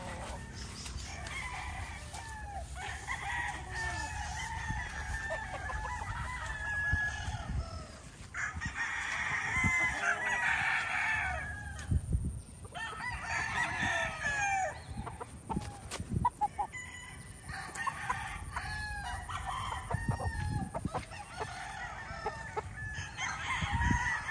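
Young gamecock stags crowing repeatedly, several birds overlapping one another, with clucking in between.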